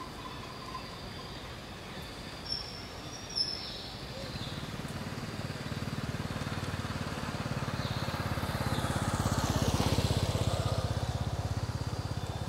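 A motor vehicle passing on the road: its low engine hum builds from about four seconds in, is loudest near ten seconds, then eases off. Two short high chirps come a little before it, around three seconds in.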